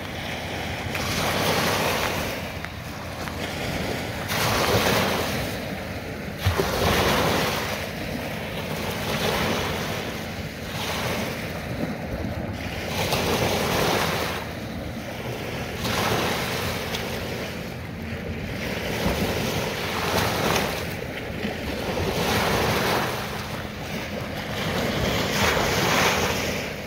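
Small waves washing against the reservoir shore, the wash swelling and falling about every two seconds. One brief knock about six seconds in.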